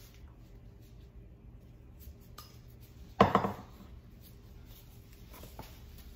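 A small ceramic bowl set down on a wooden worktop: one short clatter of a few quick knocks a little over three seconds in, with a few faint clicks of handling around it.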